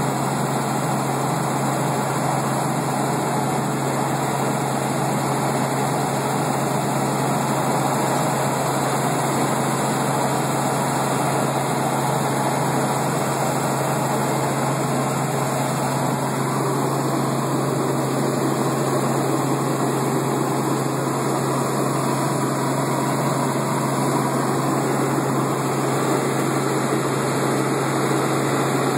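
Helicopter turbine and rotor noise heard from inside the cabin: a loud, steady drone with a constant low hum underneath.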